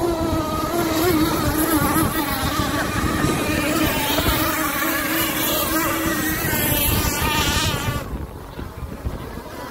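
Gas-powered RC catamaran race boats running flat out, their Zenoah two-stroke engines making a high, buzzing whine that wavers in pitch as they race around the lake. The sound drops away sharply about eight seconds in.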